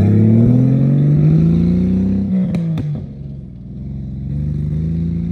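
Jeep Cherokee engine, running on gasoline mixed with vodka, revving up as the Jeep pulls away, its pitch climbing steadily. About two and a half seconds in there is a brief rattle and the pitch drops and fades, then it climbs again as the Jeep accelerates off.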